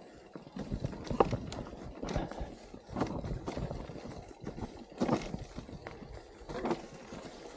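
Mountain bike clattering downhill over rough, rocky trail: an irregular run of knocks and rattles, with a few harder jolts along the way.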